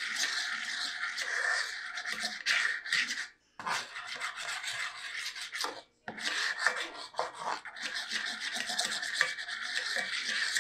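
A spatula scraping back and forth over the cooking surface of a Lodge cast iron skillet, spreading a thin coat of oil to season it. The scraping strokes run steadily, with two brief pauses about three and a half and six seconds in.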